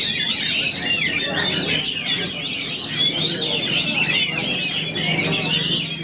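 Many caged oriental magpie-robins (kacer) singing at once in a contest session: a dense, unbroken tangle of quick whistled and chattering song phrases overlapping each other.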